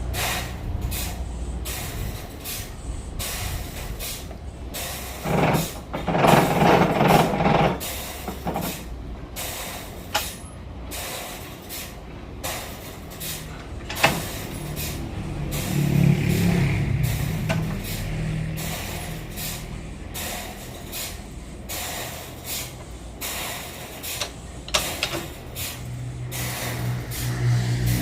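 Sawmill machinery running with a steady low rumble and frequent knocks and clatter. About six seconds in there is a louder, harsher stretch lasting a couple of seconds, and a low hum swells twice later on.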